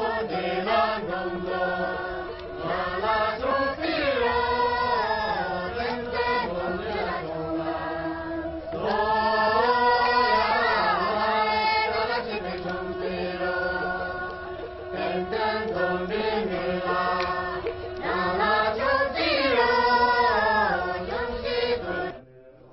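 Voices singing a chant-like song together, a sustained melody that stops suddenly near the end.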